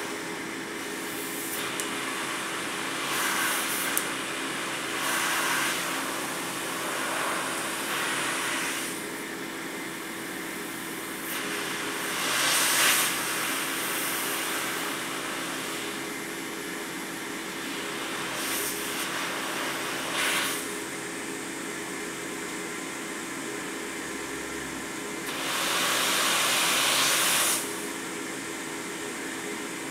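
Quantum PSV ventilator's blower running with a steady hum, overlaid by hissing surges of air at uneven intervals, a longer surge near the end, as air is pushed against its partly taped-over outlet.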